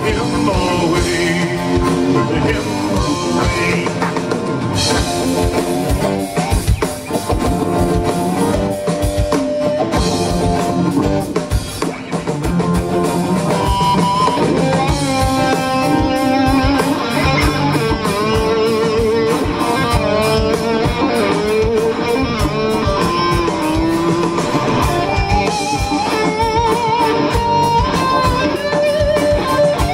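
Live rock band playing an instrumental passage: a wavering lead guitar line over drum kit, bass and strummed rhythm guitars, with no vocals.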